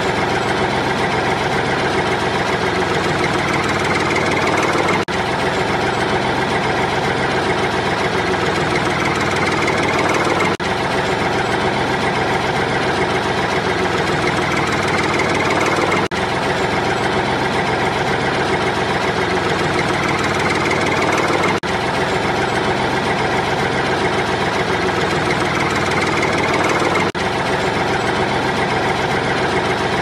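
Tractor engine sound effect running steadily at idle, looped so that a brief dip comes round about every five and a half seconds.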